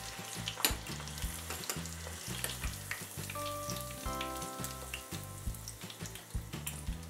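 Breaded chicken nuggets deep-frying in a small saucepan of hot oil: a steady sizzle scattered with crackles and pops, while a fork stirs and lifts them.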